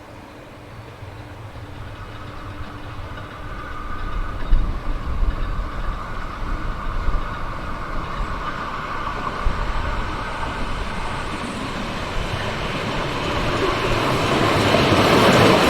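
A train approaching and growing steadily louder, its rumble building to a loud rush of wheels on rails near the end.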